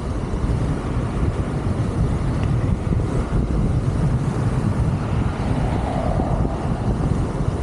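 Steady rush of strong wind buffeting the microphone of an electric scooter ridden at speed, heaviest in the low range.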